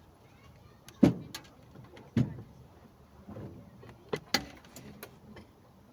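A series of irregular sharp knocks and clicks, the loudest about one second and two seconds in, with a quick pair a little past four seconds.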